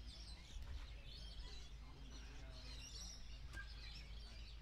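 Outdoor background: a steady low rumble with birds chirping faintly on and off, and a single small click about three and a half seconds in.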